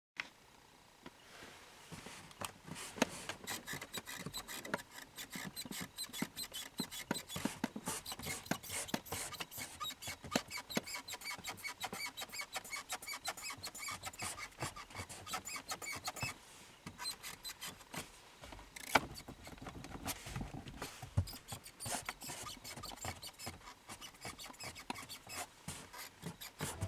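Plastic trim around the instrument cluster of a 70-series Toyota Voxy creaking and squeaking in quick, irregular ticks, the noise of trim panels rubbing against each other.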